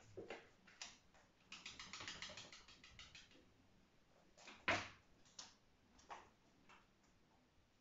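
A cat's plastic cone collar knocking and rubbing against cardboard boxes as the cat noses into them: a string of light knocks with a quick rattle of clicks about a second and a half in. The strongest knock comes just past the middle.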